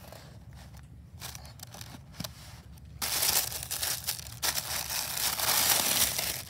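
Tissue paper crinkling and rustling loudly as it is unfolded inside a cardboard gift box. The first few seconds hold only quieter handling with small clicks.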